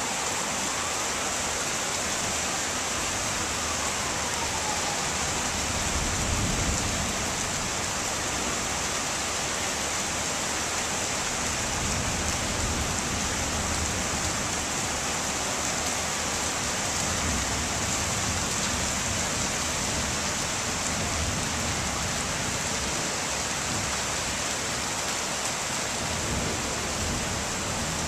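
Heavy rain falling steadily, a constant hiss, with a few low rumbles swelling and fading now and then.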